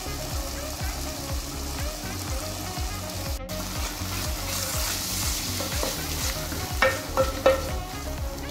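A metal spoon stirring tomato paste into a thick, sizzling tomato and onion base in an aluminium pot, scraping in a steady rhythm. Near the end the spoon knocks sharply against the pot three times.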